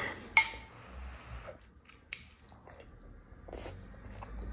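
Close-up eating sounds: chewing a mouthful of rice and chicken, with a metal spoon clicking sharply against a ceramic bowl about half a second in and again around two seconds.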